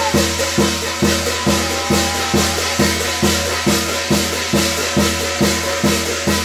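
Korean shamanic gut music: a drum struck in an even beat about three times a second, with jingling, rattling metal percussion over it.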